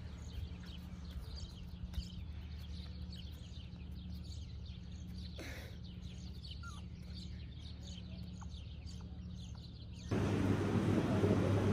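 Outdoor background of small birds chirping, with short high chirps scattered over a steady low hum. About ten seconds in, the sound cuts abruptly to a much louder, denser background noise.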